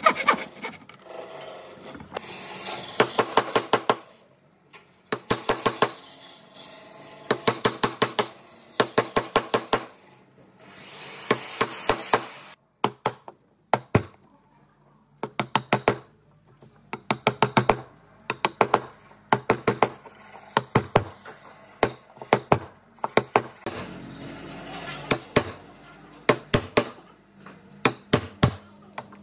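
Hand tools working wood: bursts of quick sharp taps, four to eight at a time, come every second or two, with quieter scraping between them.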